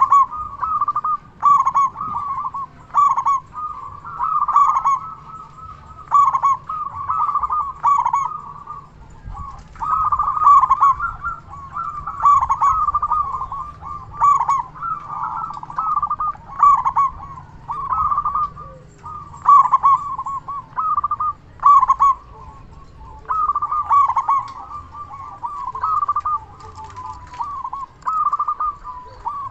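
Zebra dove (perkutut) cooing: a male of the local Indonesian strain repeats phrases of short, staccato cooing notes, roughly one phrase a second.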